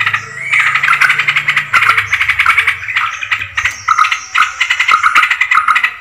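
Yellow-vented bulbuls (trucukan) calling: continuous fast, bubbling chatter of rapidly repeated notes, the kind of bulbul call track used to lure the birds in.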